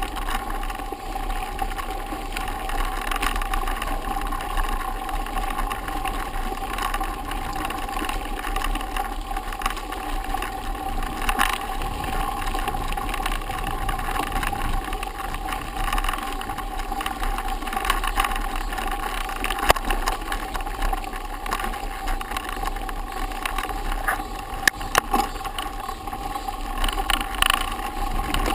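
Mountain bike riding over a dirt forest road: steady rolling noise with a constant hum, and a few sharp clicks and rattles in the last third.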